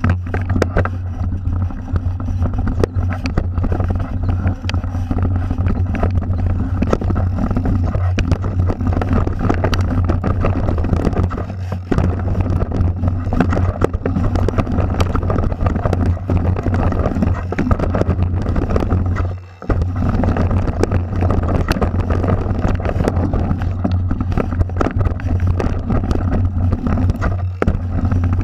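Mountain bike riding down a dirt singletrack, heard through a bike-mounted camera: a steady low rumble from wind and vibration on the microphone, with constant clatter and rattling from the trail. The noise dips briefly about two-thirds through.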